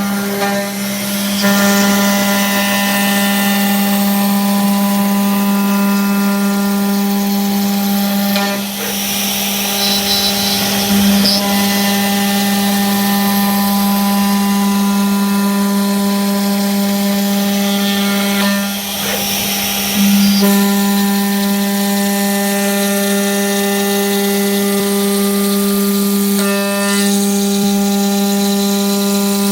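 CNC router spindle running with a steady whine while its bit cuts acrylic sheet, over a hiss of cutting noise. The sound dips briefly about nine seconds in and again near nineteen seconds.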